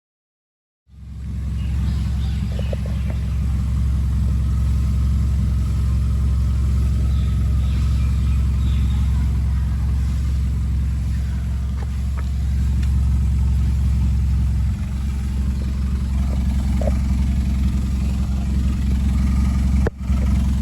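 Hyundai Creta petrol engine running at idle, a steady low exhaust drone starting about a second in.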